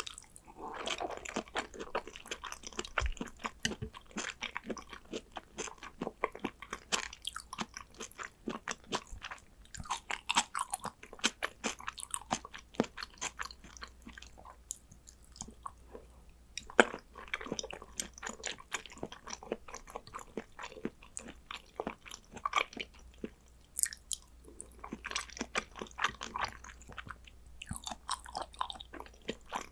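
Close-miked chewing of soy sauce–marinated salmon, with a steady run of quick mouth clicks and short bites, some with a slight crunch.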